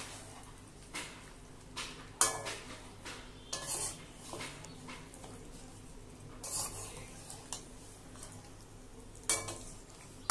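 Metal spatula scraping and knocking against a kadai as chicken and potatoes are stirred and sautéed in a thick masala. The strokes come irregularly, about one every second, a few louder than the rest, over a faint steady hum.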